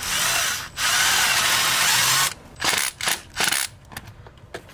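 Cordless power tool's motor spinning a hose clamp tight on the intake coupler. It runs in two longer pulls, then a few short bursts as the clamp seats snug.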